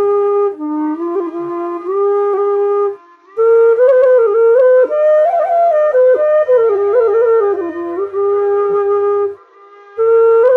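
Bansuri bamboo flute playing a slow melody of long held notes with sliding ornaments, pausing briefly twice between phrases.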